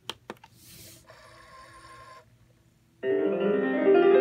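Two quick button clicks on a Timex T617S clock radio, a brief hiss, then after a short pause piano music starts playing loudly from its speaker about three seconds in, with notes climbing upward.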